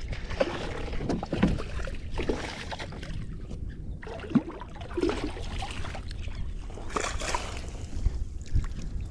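Wind rumbling on the microphone over water sloshing against a kayak, with scattered small knocks and clicks.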